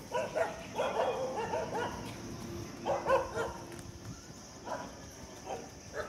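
A dog barking in short runs, the loudest barks a little after the start and again about three seconds in, with a few fainter single barks later.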